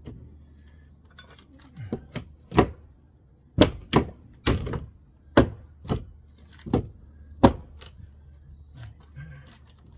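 Wood wall framing being struck during demolition: a run of about eight heavy knocks, unevenly spaced, over about six seconds.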